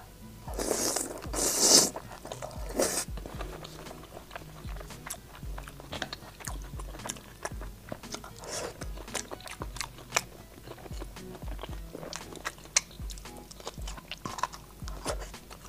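Close-miked mukbang eating. Two or three loud wet bites and slurps come in the first few seconds as she bites into a braised soft-boiled egg with a runny yolk. Then comes steady wet chewing with many small mouth clicks.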